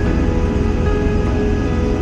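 Background music with long held notes that change about once a second.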